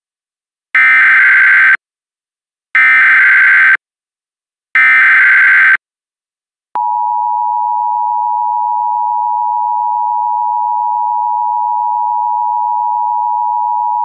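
Emergency Alert System tones: three one-second squawks of the SAME digital header, about a second apart, then the steady two-tone EAS attention signal starting about seven seconds in, marking the start of an emergency alert.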